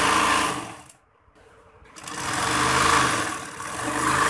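Sewing machine stitching in spurts: it runs, stops about a second in, starts again about two seconds in, slows briefly past the middle and then picks up again.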